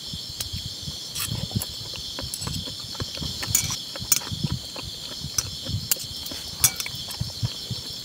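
Insects chirping in a steady high-pitched chorus, with scattered light clicks and low knocks through it.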